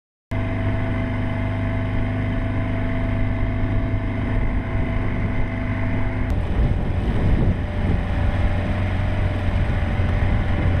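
A boat's outboard motor running steadily under way, with a low rumble and a steady engine note, starting a moment in. About six seconds in there is a faint click and the sound turns rougher, with less of the steady note.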